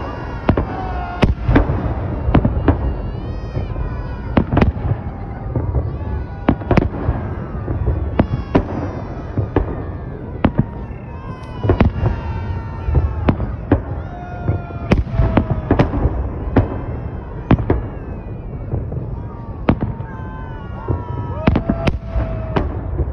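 Aerial fireworks shells bursting in a dense, irregular series of sharp bangs, one to three a second, over a continuous low rumble.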